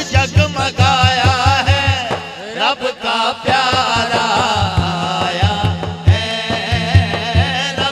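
Male voices singing a naat, with a quick, even low pulse keeping time underneath. About two seconds in the pulse drops out briefly while a voice slides upward, then it comes back.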